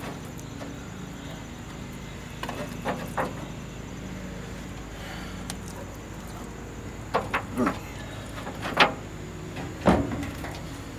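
Slabs of raw baby back ribs being set down and shifted on a smoker's metal grate: a few short knocks and clanks, most of them in the second half, over a steady low hum.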